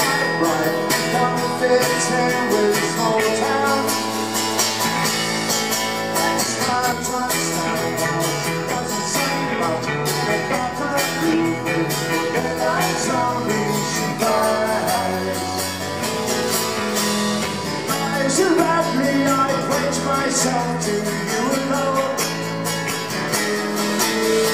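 A live rock band playing, with strummed acoustic guitar, electric bass guitar and drums.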